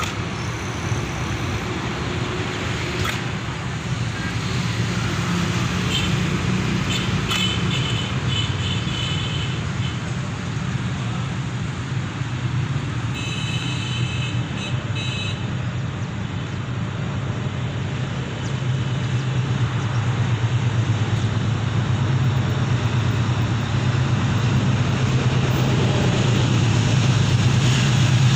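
Diesel-electric locomotive of an approaching passenger express, a steady low engine drone that grows louder as the train draws near, swelling about two-thirds of the way through and again at the end.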